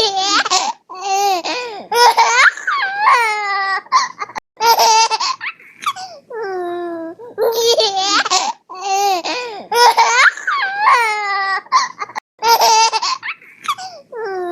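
A baby laughing in repeated bursts of quick high-pitched giggles and squeals, some falling in pitch, with short pauses between bursts.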